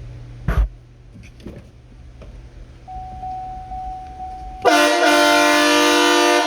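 Hornblasters Outlaw train horn, air-fed from an onboard tank and compressor, sounding one loud, steady blast of about two seconds that begins near the end and cuts off sharply. A short thump comes about half a second in.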